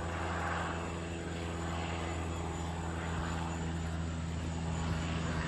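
Single-engine Cessna light aircraft in flight, its propeller engine giving a steady drone.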